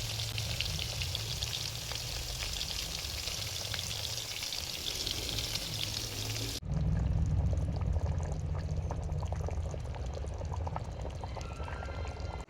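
Steady hissing from a cooking pan on the stove, with a low rumble underneath. About six and a half seconds in the sound cuts abruptly: the hiss drops and a louder low rumble with light clicks takes over.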